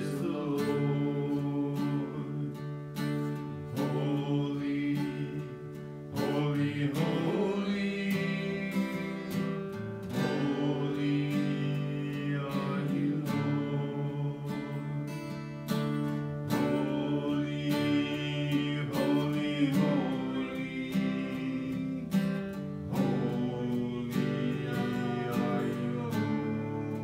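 Acoustic guitar strummed in a steady rhythm, accompanying a man singing a slow worship song.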